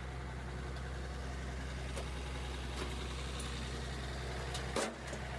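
A machine running with a steady low hum, with a few light clicks and a louder metallic knock near the end, where the hum cuts off.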